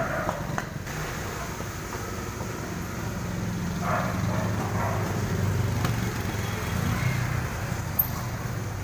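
Steady low rumble of street traffic, with one short click near the end.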